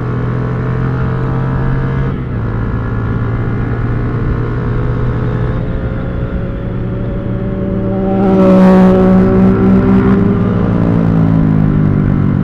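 Motorcycle engine running steadily under way. About eight seconds in it gets louder and rises in pitch as it accelerates.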